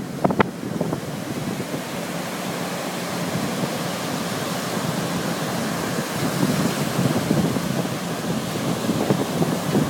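Surf breaking and washing up a sandy beach, with wind rumbling on the microphone; the wash swells louder near the end.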